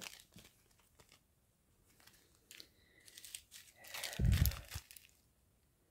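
Plastic packaging crinkling as it is handled: a few faint rustles and ticks, then a louder crinkle with a dull bump about four seconds in.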